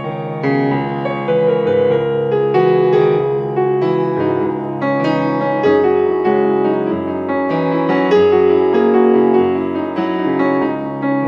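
Background music: a keyboard piece played with a piano sound, many notes ringing over one another.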